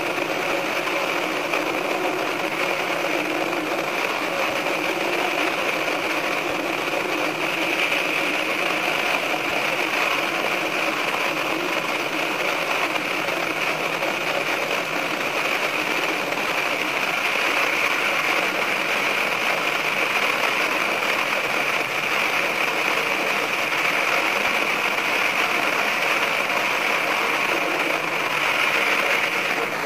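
Sanriku Railway 36-200 diesel railcar running through a tunnel, fast-forwarded to five times speed: a steady, unbroken running noise that keeps an even level throughout.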